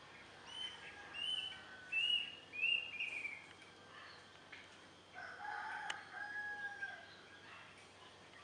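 A rooster crows once about five seconds in: a drawn-out, two-part crow that falls away at the end. Before it, a bird gives a quick series of four short, high calls, the loudest sounds here.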